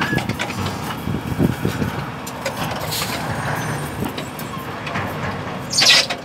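Concrete pan mixer plant with its hydraulic hopper running: a steady machine drone with scattered rattles and knocks, and a brief loud hiss about six seconds in.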